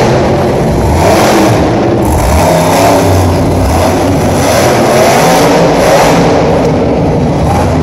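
Monster truck's supercharged V8 engine revving loudly, its pitch rising and falling again and again as the truck is driven hard.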